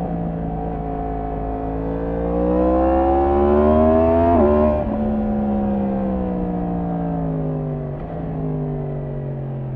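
Yamaha MT-10's 998 cc crossplane inline-four on its stock exhaust, heard from the rider's seat under way. Its revs climb for about two seconds, fall off sharply about four and a half seconds in as the throttle closes, then sink slowly on the overrun, with a brief change in engine note about eight seconds in.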